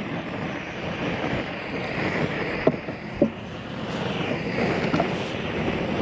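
Propane flame weeder torch giving a steady rushing sound of escaping gas, with two sharp clicks about three seconds in.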